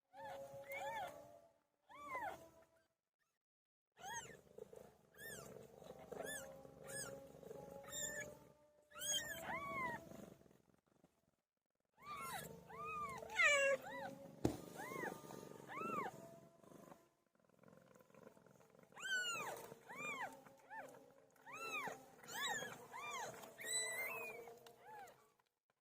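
Newborn kittens mewing: many short, high, rising-and-falling cries, often several at once, in bursts broken by abrupt cuts to silence.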